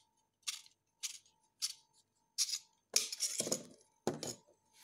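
A steel blade scraping and clicking as it is slid into and worked in the blade channel of a plastic snap-off utility knife. Short strokes come about every half second at first, then louder, longer scrapes near the end.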